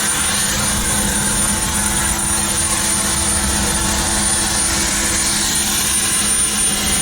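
Helicopter engine and rotor running steadily: a constant loud drone with a thin, steady high whine over it.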